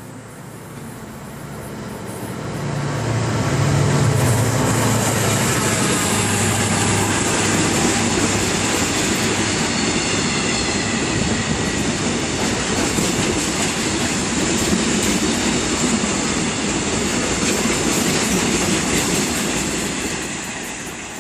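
Freight train of cement tank wagons passing close by at speed. The locomotive's low hum swells up over the first few seconds, then the long steady rumble of the wagons' wheels on the rails, fading near the end.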